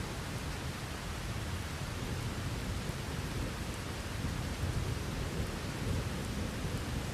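Steady rain with a low rumble of rolling thunder, the rumble swelling about halfway through.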